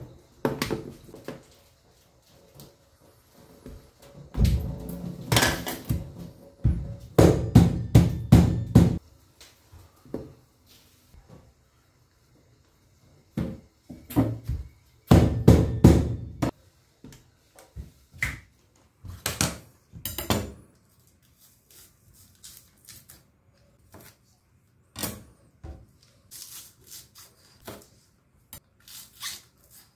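Irregular knocks, thuds and clatter as lobster shell is handled and broken on a plastic cutting board in a stainless steel sink, in loud clusters with quieter handling between. Near the end, light taps of a knife cutting on a cutting board.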